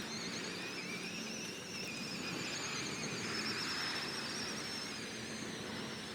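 Electric ATV's motor whining, its pitch drifting up and down as the speed changes.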